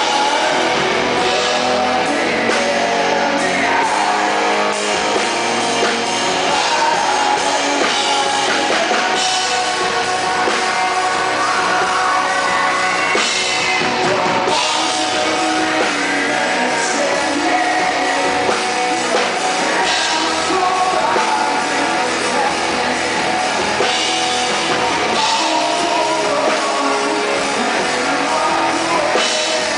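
Live rock band playing: a male lead vocal sings over electric guitar and drums.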